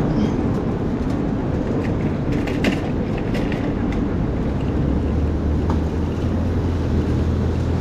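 Rainy city street: steady rumble and hiss of traffic on wet roads, with a deeper engine drone coming in about five seconds in and a few faint clicks.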